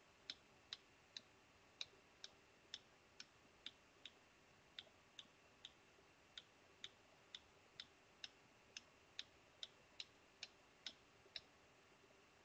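Faint, evenly spaced clicks of a computer keyboard key being tapped over and over, about two taps a second, stopping a little before the end, with one last tap after a pause.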